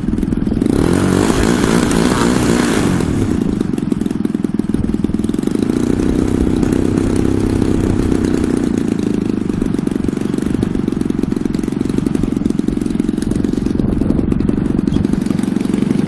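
Engine of a 35% scale Sbach 342 radio-control aerobatic plane running on the ground with its propeller turning. It revs up briefly about a second in, then settles to a steady idle.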